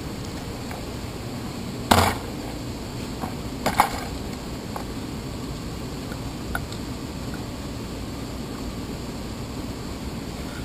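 A bicycle being handled and parked at a rack: two loud, sharp clunks about two seconds apart, then a few faint clicks, over a steady room hum.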